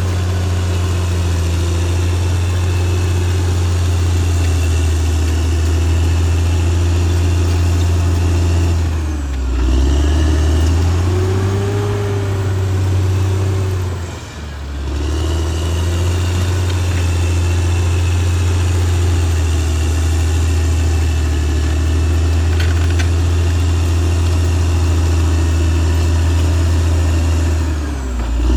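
Caterpillar D6R XL bulldozer's diesel engine running steadily under working load. Its pitch sags and then climbs back about a third of the way in, and the sound dips briefly about halfway through.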